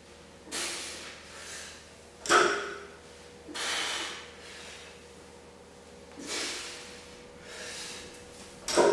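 A lifter breathing hard through a set of heavy sumo deadlifts with a barbell loaded to 152 kg, giving short forceful exhales and inhales. The plates knock on the floor twice as the bar touches down between reps, about six seconds apart, with a short ring after each knock.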